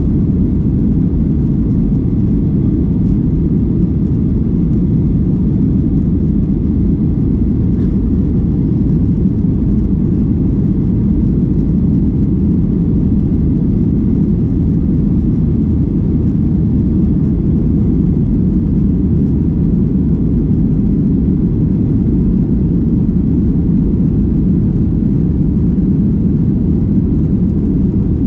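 Steady low rumble of a jet airliner's engines and airflow, heard inside the passenger cabin while the plane descends on approach to land. It stays even throughout, with no changes in pitch or level.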